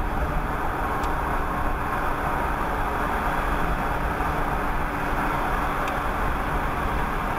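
Steady road noise of a car cruising on a highway, heard from inside the cabin through a dashcam: an even rush of tyres and wind over the engine's hum, with a faint steady low tone.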